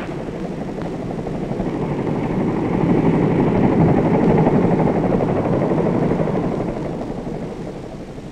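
Helicopter engine and rotor noise, steady in character, swelling to its loudest about halfway through and then fading away.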